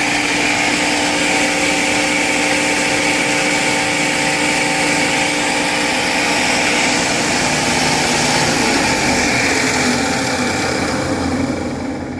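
Belt-driven table saw running with a knocking vibration, which the owner first took for a bearing but now thinks is more belt-related. Near the end it is switched off and begins to wind down.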